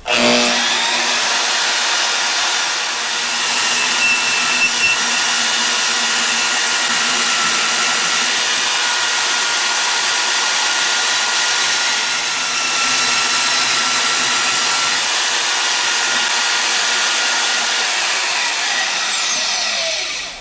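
Milwaukee 6232-21 portable band saw running with its trigger locked on. The motor spins up with a rising whine, runs steadily, then winds down with a falling whine near the end when it is switched off.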